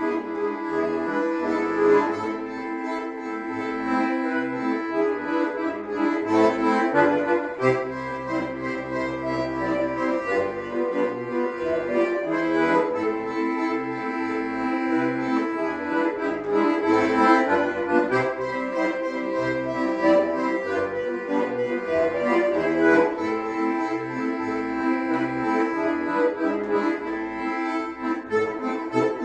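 Two bayans (Russian button accordions) playing a folk tune as a duet: held chords and melody over an evenly pulsing bass line.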